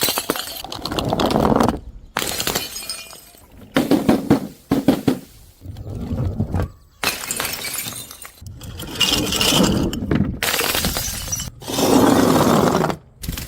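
Glass bottles and jars being smashed and crushed: a run of separate crashes with crunching and clinking shards, each cut off short.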